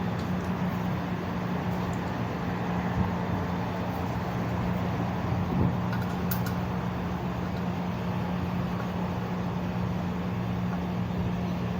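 A small electric motor running with a steady, even hum.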